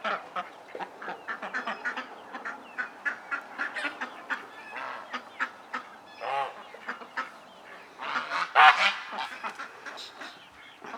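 A mixed farmyard flock of geese, ducks and chickens calling over one another in many short, overlapping calls, with a louder run of calls about eight seconds in. The birds are excited and hungry, waiting to be fed.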